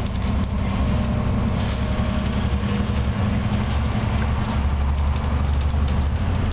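Volvo B7TL double-decker bus under way, heard from the upper deck: a steady low drone of its six-cylinder diesel engine and road noise, with light rattles of the body and fittings.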